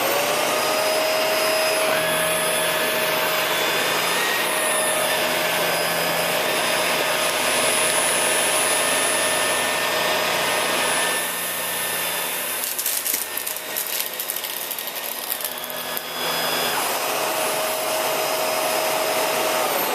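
Shark Rotator upright vacuum switching on and running steadily over carpet. From about halfway through, dry beans rattle and clatter as they are sucked up. Near the end it is switched off, and its motor whine falls away as it spins down.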